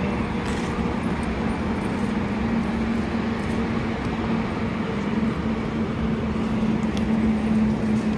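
A steady low hum of a motor or engine running, over even, rushing background noise.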